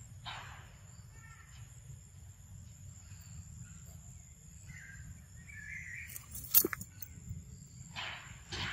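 Outdoor ambience: a steady low rumble and a thin, steady high drone, with a brief chirp about five seconds in. A sharp click about six and a half seconds in is the loudest sound, and rustling steps begin near the end.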